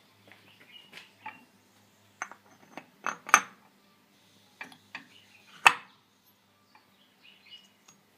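Light metallic clinks and taps as a supercharger impeller is set onto its shaft in the aluminium housing, with the loudest clinks about three seconds in and again near six seconds.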